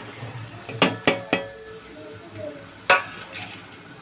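Metal kitchen utensils clinking against a cooking pot as ingredients are tipped into boiling water: three quick ringing clinks about a second in, then one more about two seconds later.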